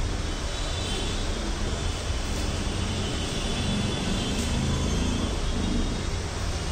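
Steady low rumble with an even hiss over it, a constant background noise with no distinct strikes.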